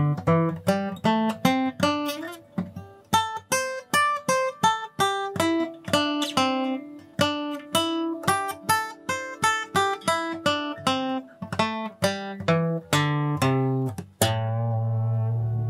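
Steel-string acoustic guitar picked note by note: a simple lead-guitar practice phrase of single notes and a few chords, about two or three a second. A strummed chord near the end is left to ring.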